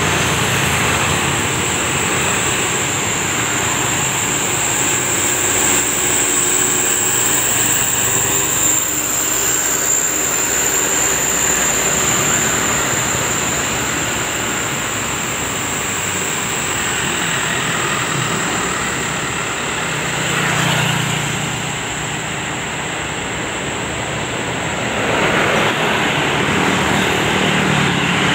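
Road traffic passing on a hill road: motorcycles, a minivan and trucks drive by with a steady mix of engine and tyre noise. Nearer vehicles swell louder about two-thirds of the way in and again near the end, over a steady high-pitched whine.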